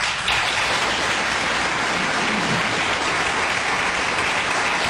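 Studio audience breaking into applause: dense, steady clapping that starts suddenly.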